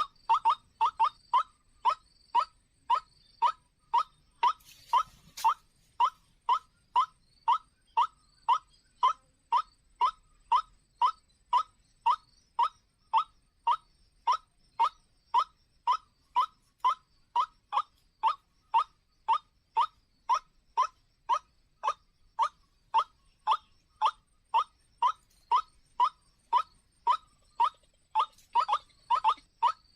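White-breasted waterhen call: a short, upward-sliding note repeated steadily about twice a second. A brief rustle sounds about five seconds in.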